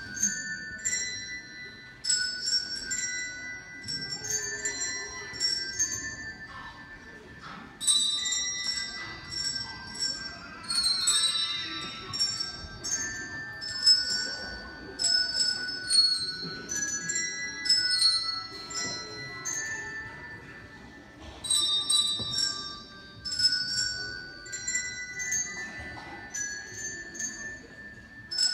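Handbells rung by a children's group, playing a tune note by note: each bell is struck and left ringing, at several different pitches in turn.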